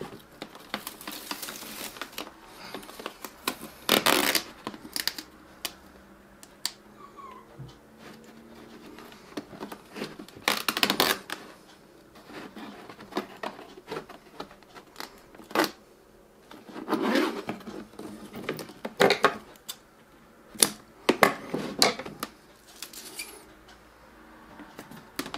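Hands working insect-screen mesh and self-adhesive hook-and-loop strips against the walls of a plastic container: irregular rustles, scrapes and short tearing rasps, with louder bursts every few seconds.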